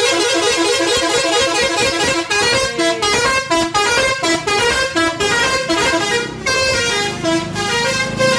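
Bus telolet horn playing a fast melody of short stepped notes, several tones sounding together.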